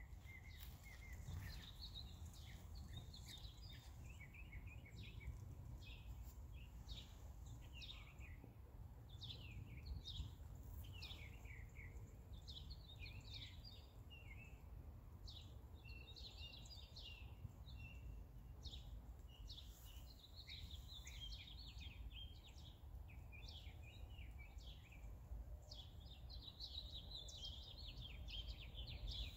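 Songbirds chirping and singing, a busy run of short chirps and quick falling notes all through, over a faint low rumble.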